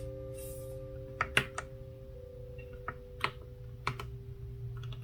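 A few scattered keystrokes on a CIDOO ABM084 mechanical keyboard with TTC Gold Pink linear switches: about seven separate key presses at irregular spacing, three in quick succession a little after a second in, then single presses.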